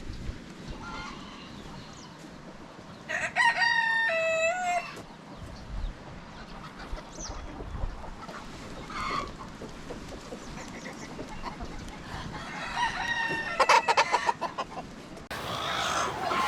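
Rooster crowing twice, each crow lasting about two seconds, with hens clucking quietly in between.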